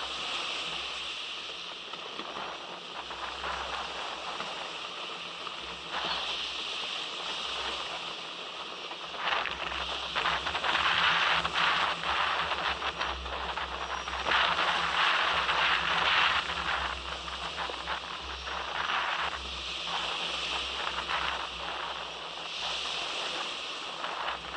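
Water rushing and hissing along the hull of a small sailing craft moving fast, in waves that swell and fade every few seconds, with strong wind buffeting the microphone as a low rumble.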